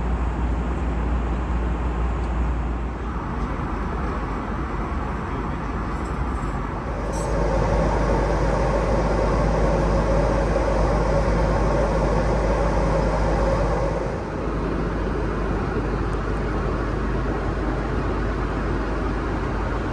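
Steady roar of an Airbus A330's cabin in flight, engine and airflow noise with a deep rumble underneath. For several seconds in the middle it grows a little louder and brighter.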